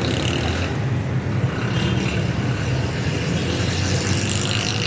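Steady low rumble of road traffic and vehicle engines, continuous with no distinct events.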